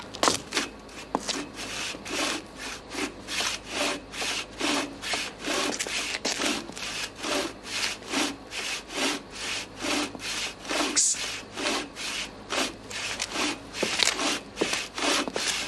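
Hand saw cutting through wood in steady back-and-forth strokes, about two a second.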